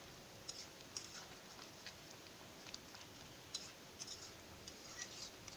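Faint, scattered clicks and small pops from a metal kadai of thick simmering vegetable-and-prawn curry as a metal spatula stirs it, irregular and about a dozen in all.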